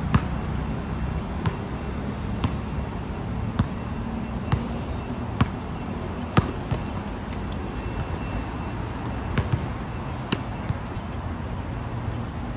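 Basketball bouncing on an outdoor hard court: single sharp bounces about once a second, pausing for a few seconds midway, over a steady background hiss.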